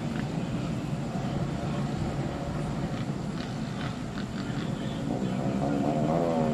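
Street-racing motorcycles with loud aftermarket exhausts running in a continuous engine drone. Near the end one engine revs up, rising in pitch.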